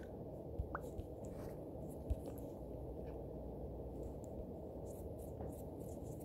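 Quiet steady room tone: a low hiss from an open microphone, with two faint clicks about half a second and two seconds in.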